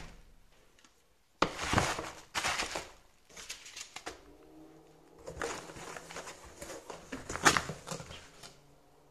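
Bubble wrap crinkling and a cardboard carton being handled while things are lifted out of it, in several bursts of rustling with a sharp crackle about seven and a half seconds in.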